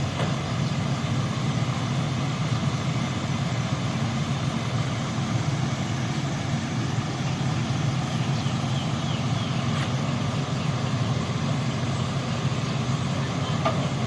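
A truck's engine running steadily at an even pace, with no revving or change in speed.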